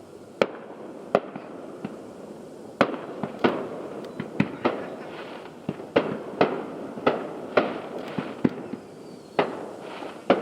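Aerial fireworks shells bursting in an irregular string of about a dozen and a half sharp bangs. The bangs come closer together from about three seconds in, with rumbling echo between them.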